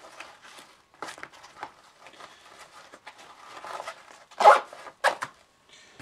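Nylon backpack pouch being handled: soft rustling as items are pushed back into it, then two short, loud rasps about four and a half and five seconds in.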